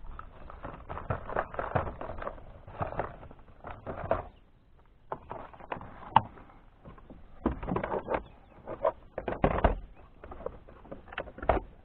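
Irregular knocks, clatter and rustling of gear being handled on a plastic fishing kayak, with a short lull a little before halfway and a sharp click just after it.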